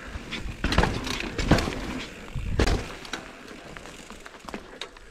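Mountain bike rolling over a rocky trail: tyres and frame clattering, with three heavy thumps in the first three seconds, then quieter rolling noise.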